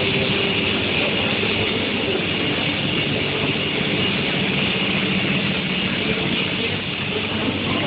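Steady, loud drone of industrial heat-treatment line machinery, with a constant high whine over a low hum.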